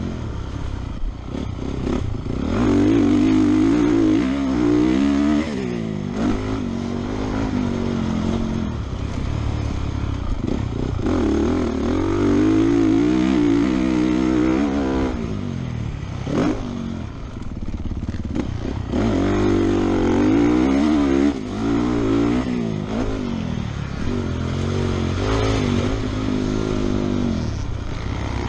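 Honda motocross bike's engine ridden hard on a dirt track, its pitch climbing and dropping again and again as the throttle is opened and chopped, heard close up from a helmet camera with wind and track noise.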